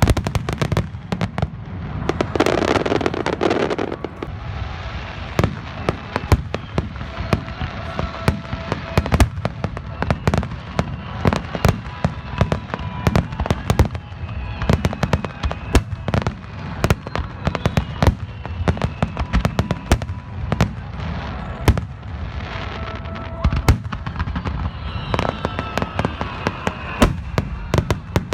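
Fireworks display: a rapid, continuous string of sharp bangs and crackles from bursting aerial shells over a steady low rumble, with a louder surge about two to four seconds in.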